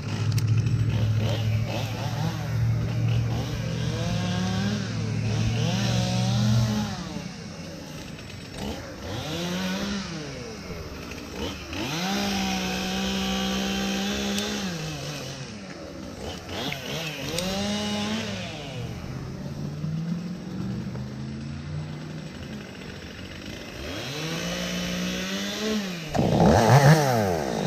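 Two-stroke chainsaw running, steady for several seconds and then revved up and let back down many times, with one longer stretch at high throttle about halfway through.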